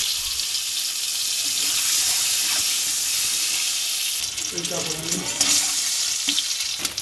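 Whole boiled eggs, coated in salt and turmeric, frying in hot oil in a kadai: a loud, steady sizzling hiss that turns patchier about four seconds in, with crackles and spits of oil.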